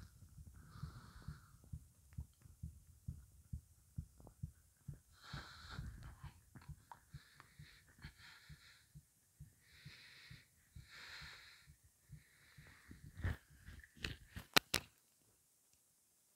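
Hungry human stomach gurgling and rumbling in many short, soft low gurgles and thuds: an empty stomach holding only water. Soft breaths come and go between them, and a few sharp clicks sound near the end.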